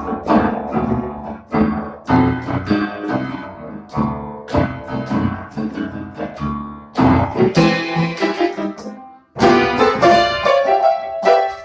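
Electronic keyboard played by hand, chords and single notes struck in an uneven, practising rhythm, with a short break about nine seconds in.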